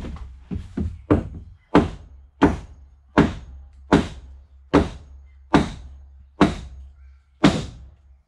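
About a dozen hammer blows on wood, a few quick ones at first and then one roughly every three-quarters of a second, each with a short ringing knock. They come from striking the laminated beams and blocks on the bending jig during the clamping stage of the glue-up.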